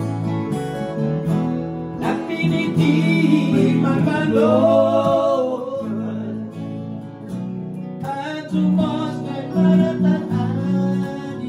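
A small band playing a song together: an acoustic guitar strummed over electric bass notes, an electric guitar and an electronic keyboard. For a few seconds from about two seconds in, a wavering melody line stands out above the chords.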